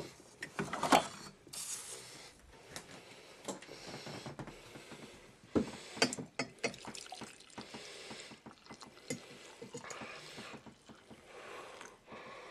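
Scattered clicks and knocks with some rustling as a drip coffee maker and its parts are handled. The loudest knock comes about a second in.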